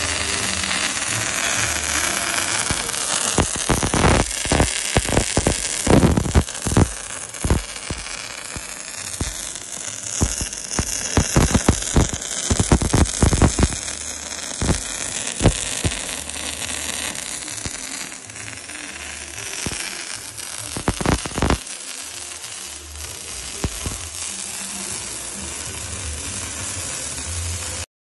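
MIG welding arc on steel plate, a steady loud sizzling hiss with bursts of sharp crackles and pops through the middle stretch as the bead is run.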